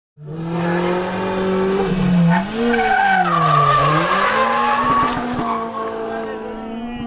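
Rally car engine under load, cutting in abruptly. Its pitch falls to a low point about halfway through, then rises and holds steady, with tyre noise throughout.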